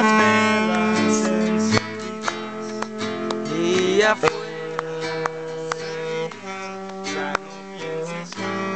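Acoustic guitar music played live, strummed and plucked, with long held notes and a rising slide about four seconds in.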